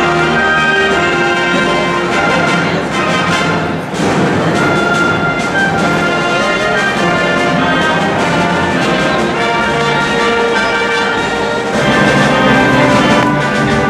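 Live orchestra with a brass section playing.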